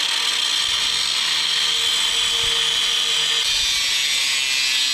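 Angle grinder with a cut-off wheel cutting through a steel bar: a loud, steady, high-pitched grind that starts abruptly.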